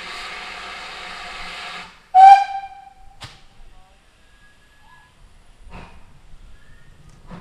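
GWR Manor class steam locomotive's whistle blowing a long, steady blast with a hiss of steam, cutting off about two seconds in. Just after, a much louder short tone at a similar pitch sounds once and quickly fades, followed by a single click.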